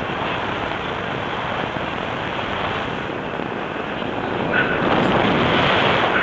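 Wind rushing over the camera microphone in flight under a tandem paraglider, a steady rush that grows louder about four and a half seconds in.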